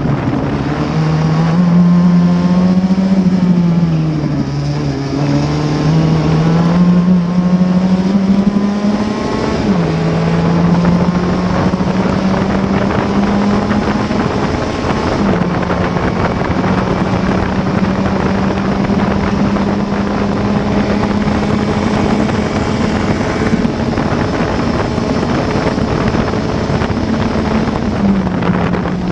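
Onboard sound of a Classic Formula Ford's 1.6-litre Ford Kent four-cylinder engine at racing speed: the pitch falls as the car slows for a corner, then climbs under full throttle, with sudden drops at upshifts about ten, fifteen and twenty-eight seconds in.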